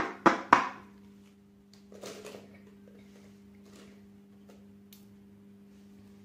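Plastic felt-tip marker pens clicking and knocking together in a few sharp clatters in the first second as they are gathered in a hand. After that there is a faint steady low hum with a few soft knocks.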